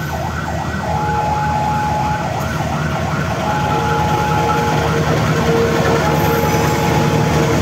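Electronic level-crossing warning siren yelping rapidly, about four wails a second, fading out about five seconds in, over intermittent steady beeps. Underneath, the CC 201 diesel locomotive's engine rumbles, growing louder as it draws close on a shunting move.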